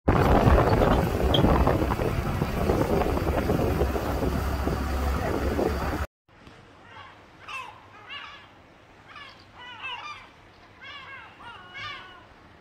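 Motorboat under way: engine hum with rushing water and wind on the microphone, cutting off sharply about six seconds in. After that, quieter, gulls call in a string of short, repeated cries.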